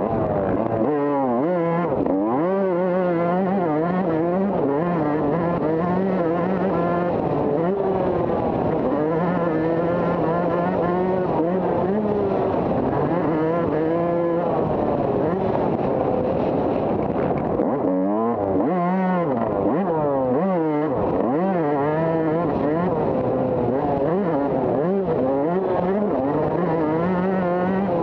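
Motocross bike's engine heard from on board as it is ridden hard, its pitch climbing and dropping over and over as the throttle is opened and shut and the gears change, with steadier held stretches in between.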